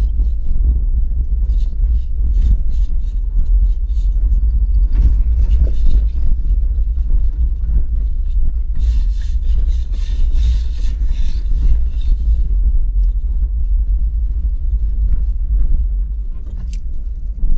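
A vehicle driving on a rough dirt road: a steady deep rumble with frequent clicks and knocks, and a hissing scrape lasting about three seconds just past the middle.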